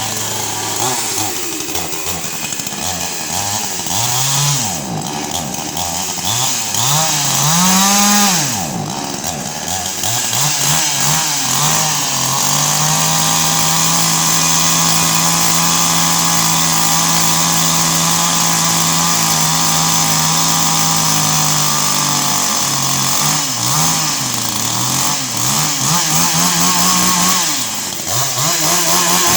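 Two-stroke chainsaw engine revving up and down in quick swoops, then held at high, steady revs for about ten seconds, then revved up and down again.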